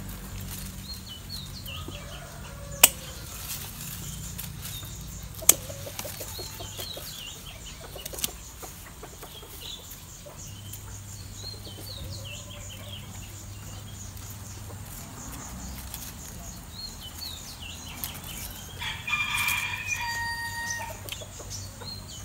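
Small birds chirping, with three sharp clicks in the first eight seconds as wire is worked off a bonsai branch. A rooster crows near the end.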